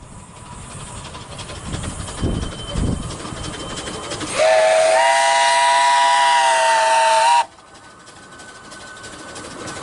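2 ft gauge narrow-gauge steam locomotive approaching with its train, the running sound growing louder. About four seconds in it sounds its steam whistle, a chord of several notes held for about three seconds and cut off sharply. The train's running and hiss then grow louder again as it comes nearer.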